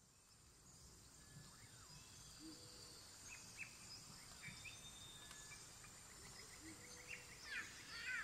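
Faint forest ambience: birds chirping and calling in short quick notes over a steady, thin, high insect drone. The bird calls get louder and come closer together near the end.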